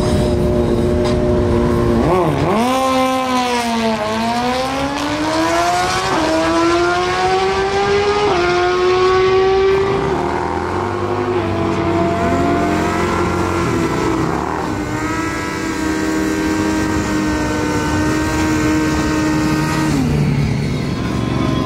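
Suzuki GSX-R 1000 superbike's inline-four engine held at steady revs on the drag strip start line, then launching about two and a half seconds in. It accelerates hard, the pitch climbing and dropping back at four or five upshifts over the next seven seconds. After that come more motorcycle engines rising and falling as bikes pass, and a steady engine note that falls away near the end.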